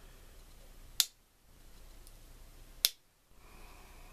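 Two sharp clicks, about two seconds apart: the implements of a Boy Scout pocket knife snapping into place against the backspring as they are worked open and shut.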